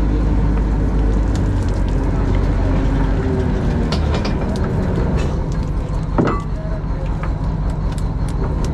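Fishing boat's engine running steadily with a deep hum; its lowest rumble eases about three seconds in. Scattered knocks and clatter from the crew handling the fish-filled net bag on deck.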